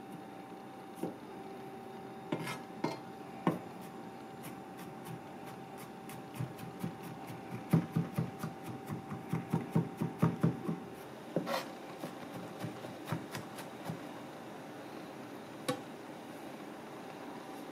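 Chef's knife chopping garlic on a plastic cutting board: scattered knife taps, with a quick run of about five chops a second for some three seconds midway. A faint steady hum sits underneath.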